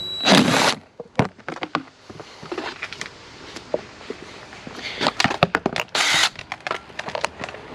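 Irregular sharp clicks and knocks of plastic dirt-bike bodywork and hand tools being handled, with two short bursts of hiss, one near the start and one about six seconds in.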